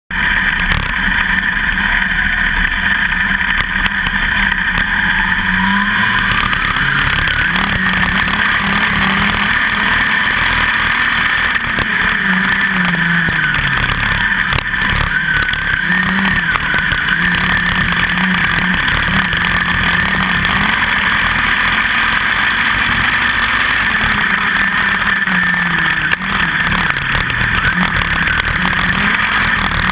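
USAC midget race car's four-cylinder engine at racing speed, heard from a camera mounted on the car. It is loud and steady, its revs rising and falling again and again through the corners, with a rising run in the first few seconds.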